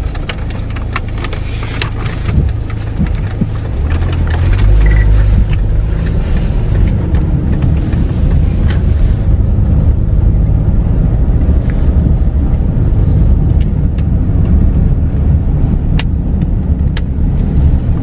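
Car driving, heard from inside the cabin: a steady low engine and road rumble that grows louder about four seconds in as the car pulls away from the junction and picks up speed.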